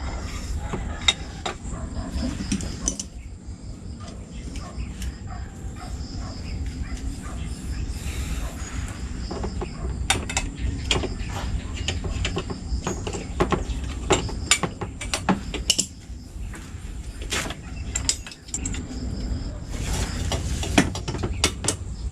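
Irregular clicks and metal clinks of hand tools and exhaust parts as an aftermarket exhaust pipe is fitted and bolted onto a scooter, over a low background rumble.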